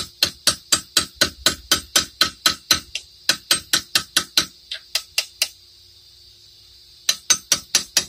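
Small hammer tapping a steel punch to drive a cotter pin out through a ball joint stud, sharp taps about four a second. The tapping stops for about a second and a half past the middle, then starts again near the end as the pin works its way out.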